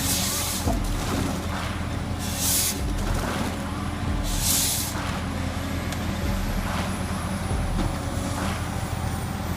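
John Deere 903MH forestry machine's diesel engine running steadily, with three short loud hisses about two seconds apart in the first half.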